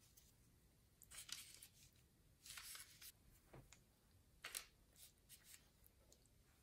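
Faint, short rustles and soft brushing of hands handling soft dough and parchment paper, a few separate bursts with near quiet between them, as pizza rolls are shaped and set on a lined baking tray.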